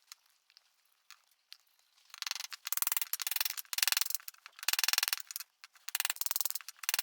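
Hand tool working a hickory hammer handle in rhythmic scraping strokes, about one every 0.7 seconds, starting about two seconds in after a few faint clicks.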